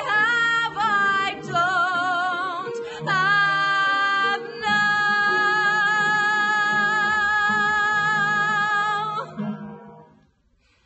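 A woman singing the closing phrase of a musical-theatre ballad over a soft accompaniment, sliding between notes, then holding one long, steady high note for about four and a half seconds. The note stops about nine seconds in, and the accompaniment fades out just after.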